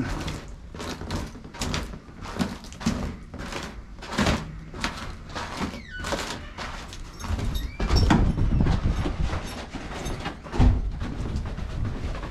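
Footsteps crunching on a thin layer of snow and ice over a wooden deck, irregular steps a few tenths of a second apart. Heavier low thuds and rumble from about seven seconds in.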